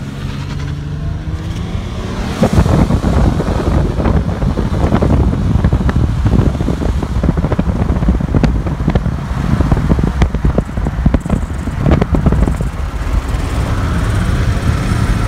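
Car engine accelerating hard, its pitch rising over the first two seconds. From then on, loud wind buffeting through an open car window at speed covers the engine, easing off near the end.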